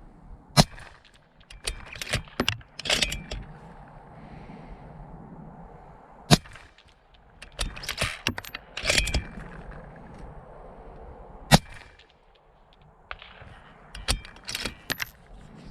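Bolt-action precision rifle fired three times, about five seconds apart. After each shot comes a quick run of metallic clicks and clatter as the bolt is worked to chamber the next round.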